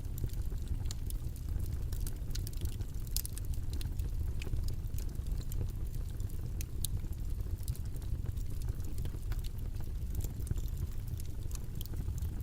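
Steady low, rumbling background noise from a white-noise track, with faint, irregular small clicks scattered through it.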